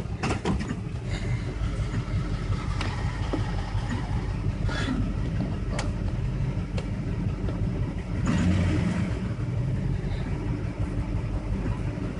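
Chevrolet LT1 V8 running rough, with scattered sharp knocks over its steady rumble and a louder surge about eight seconds in. The owner takes the rough running for a bad MAF sensor and EGR valve.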